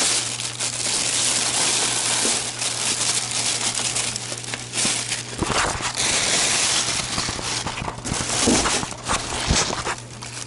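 Packaging crinkling and rustling continuously with many sharp crackles as it is handled and unwrapped to get at a small camera case.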